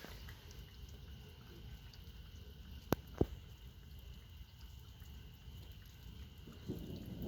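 After-storm ambience with a low steady rumble and two sharp taps about three seconds in, then distant thunder beginning to rumble near the end.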